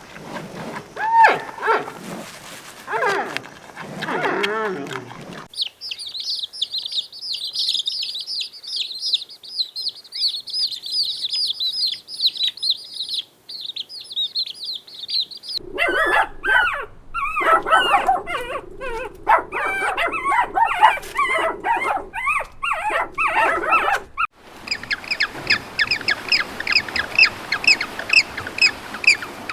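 A string of farm animal sounds. Pitched animal calls come first, then a long run of high, rapid bird chirping, then a busy mix of calls. Near the end come evenly repeated high chirps.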